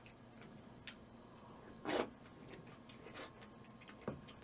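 Eating-table handling sounds: a few light clicks of a spoon and chopsticks against the dishes, with one short scraping rustle about two seconds in.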